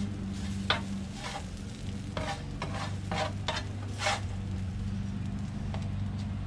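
Spatula scraping across the non-stick plate of an electric griddle, about eight short scrapes from about a second in to about four seconds in, over a steady low hum.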